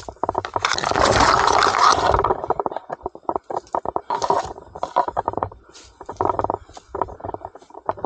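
Shrub leaves and twigs brushing and rustling against the camera as it is carried through the bush: a loud rush about a second in lasting about a second and a half, and a shorter one about four seconds in. Underneath, a steady run of quick crackling handling and footstep noises.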